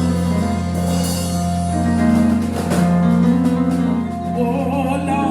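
Church band music: organ-like sustained chords over a steady bass, with drums and a cymbal crash about three seconds in.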